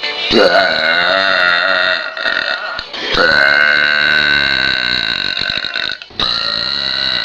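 A person burping loudly: three long burps in a row, each lasting two to three seconds with a wavering pitch, the last one still going at the end.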